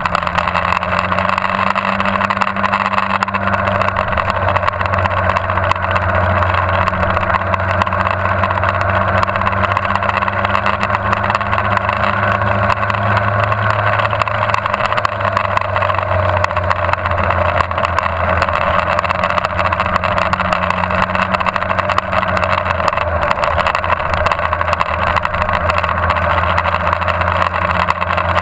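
Motorcycle engine running steadily at moderate road speed through a series of curves, its pitch shifting a little with the throttle, under a steady rush of wind noise.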